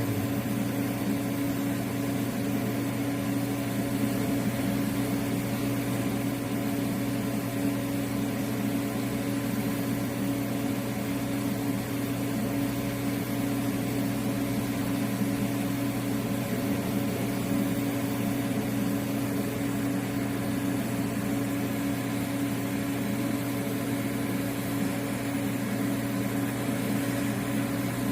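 Steady electrical hum of an arc welding set, running unchanged for the whole stretch with a low buzz and a second, higher hum.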